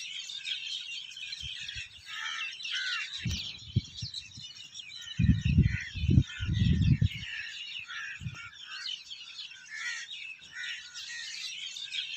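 A dense chorus of many small birds chirping and twittering without pause. Low rumbling buffets break in briefly about three seconds in, then more strongly around the middle and once more a little later; these are the loudest sounds.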